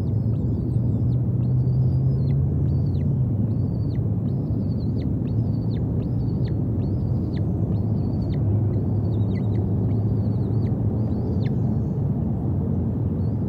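Steady low outdoor rumble with a bird calling over it again and again: thin high notes, each dropping steeply in pitch, about two a second.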